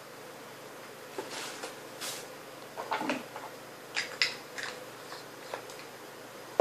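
Lips being pressed and smacked together to spread freshly applied lipstick: a few soft rustles, then a cluster of short sharp lip smacks about four seconds in.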